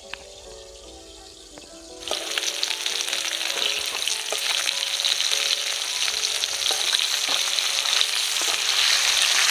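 Tuna steaks frying in hot oil in a karai: a loud, dense sizzle starts suddenly about two seconds in and keeps going, with occasional sharp clicks of a metal spatula against the pan. Soft background music plays before the sizzle starts.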